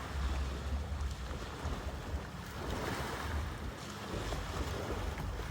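Wind buffeting the microphone in a low rumble over the steady wash of sea surf.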